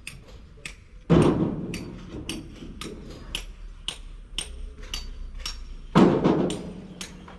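Sharp metallic taps about twice a second, with two heavier knocks that ring on, about a second in and again about six seconds in: metal tools and parts striking during work on an excavator's diesel engine.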